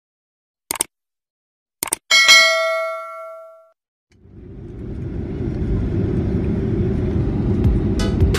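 Two mouse clicks, then a bright bell ding that rings out over about a second and a half: a subscribe-button sound effect. A few seconds in, the low rumble of a jet airliner's engines heard from inside the cabin fades in and grows steadily louder.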